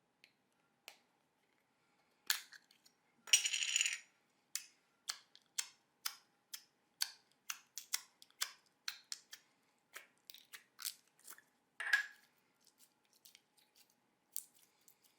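Slime being squeezed and pressed by hand, giving sharp wet pops and clicks about two a second, with a longer crackling burst a few seconds in and another near the end.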